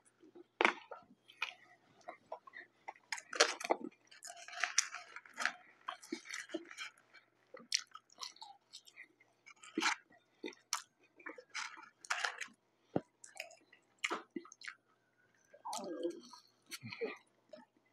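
Close-up chewing and mouth sounds of a person eating McDonald's French fries: irregular wet smacks and clicks of lips and tongue.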